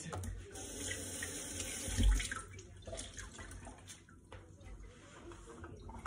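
Dishwasher just started on its eco programme, water rushing in as it begins to fill, fading after about three seconds. There is a dull thump about two seconds in.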